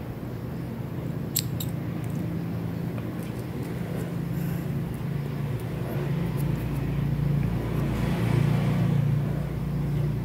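Steady low motor hum that grows louder about eight seconds in, with a couple of faint clicks about a second and a half in.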